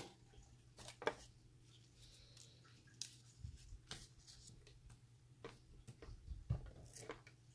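Faint paper handling: scattered light taps, clicks and rustles as cut-out paper pieces and ticket scraps are lifted off a journal page and set down on the table, over a low steady hum.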